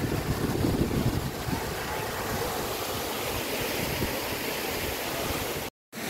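Waterfall rushing steadily, with wind buffeting the microphone in the first couple of seconds. The sound drops out completely for a moment near the end.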